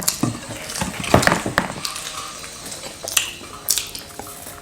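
People eating pizza, chewing and crunching, with scattered sharp clicks and knocks.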